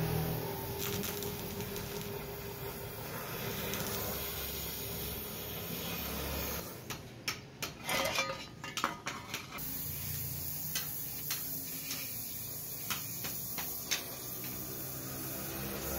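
Gas welding torch hissing steadily as a filler rod is fed into the weld on the shovel's steel. The hiss drops out for about three seconds in the middle, replaced by a rapid cluster of sharp clicks, then returns with single sharp clicks and pops several times near the end.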